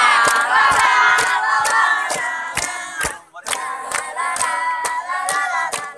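A group of students singing together, with hand claps keeping a steady beat of about three to four a second. The singing breaks off for a moment a little past three seconds in, then goes on.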